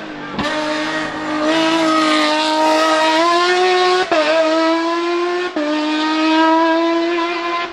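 Hillclimb sports prototype race car's engine at high revs under full acceleration, its note climbing steadily. It is cut briefly twice, a second and a half apart, by quick upshifts, the pitch stepping down slightly after each.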